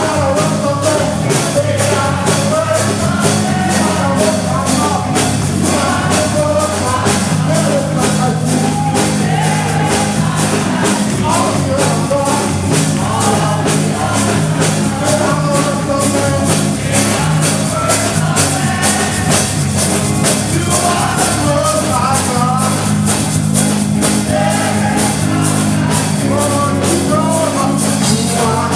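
Live gospel praise-and-worship music: a congregation and praise team singing over a band with drum kit and bass, keeping a steady fast beat.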